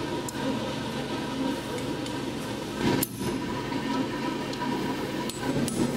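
Hammer blows on red-hot steel on an anvil while forging a raven skull pendant: a few scattered strikes, the loudest about three seconds in with a short metallic ring. A steady whirring hum runs underneath.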